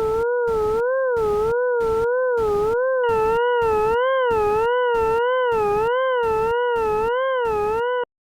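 Computer-generated tone made from a polar math function: a wavering, howl-like pitch with overtones, chopped by steady noisy pulses about twice a second. About three seconds in, higher tones join, and the sound cuts off suddenly near the end.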